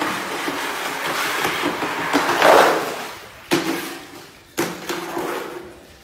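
Muddy floodwater being pushed across a floor with a broom: a long swishing rush of water, loudest near the middle, then two sharper strokes that die away.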